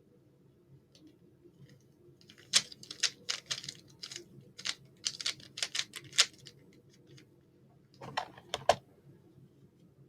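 Rubik's cube being turned fast by hand, a rapid run of plastic clicks and clacks from about two and a half seconds in, with a few more clicks near the end.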